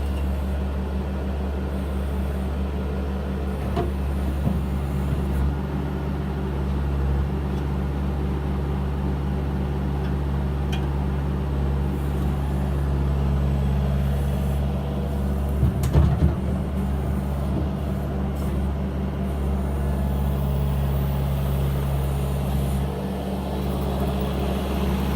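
An engine running steadily at idle, with a few short knocks about sixteen seconds in.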